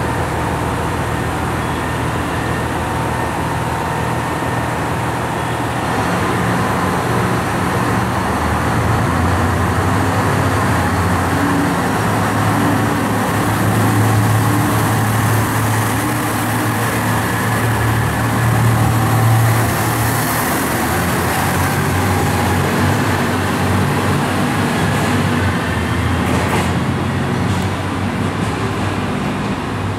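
KiHa 187 diesel railcar's high-output diesel engines revving as the train pulls away, the engine note growing louder from about six seconds in and changing pitch in steps. It is loudest as the cars pass close by and eases a little near the end.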